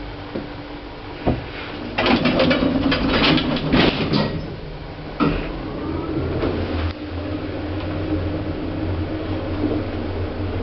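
Lift doors clattering shut with a rattle of sharp knocks, a single clunk, then the lift running with a steady low hum.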